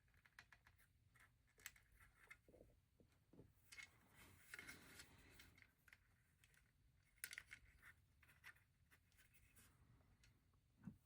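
Faint clicks and rustling of plastic LEGO bricks being handled and pressed together, with a few light knocks.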